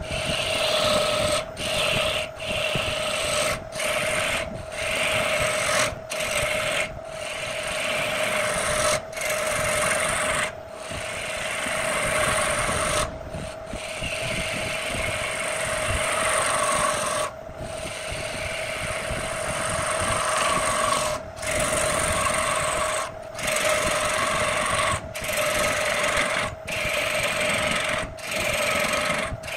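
Belt-driven electric wood lathe spinning a wooden blank while a hand-held turning tool cuts it: a steady hum under a harsh scraping cut that breaks off for a moment every second or two between passes.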